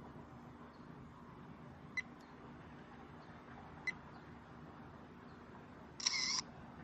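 Handheld digital camera taking a picture: two short, sharp clicks, then the shutter sound about six seconds in.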